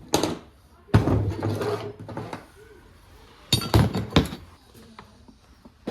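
Knocks and clatter of tools and removed parts being handled and set down: a sharp knock at the start, a longer clatter about a second in, and three quick sharp knocks a little after three and a half seconds.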